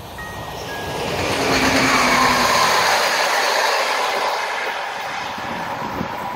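Locomotive-hauled passenger train passing at speed: a rush of wheel and rail noise swells to its loudest about two seconds in, then slowly fades as the coaches go by.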